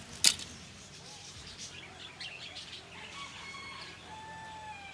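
A sharp click near the start, then birds calling: scattered chirps, and in the second half drawn-out pitched calls, the last falling slightly in pitch.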